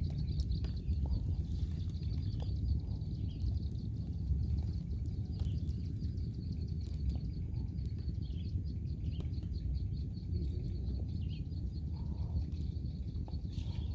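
Outdoor pond-side ambience: a steady low rumbling noise under a fast, high-pitched chirping that keeps on through most of the stretch, with a few faint clicks.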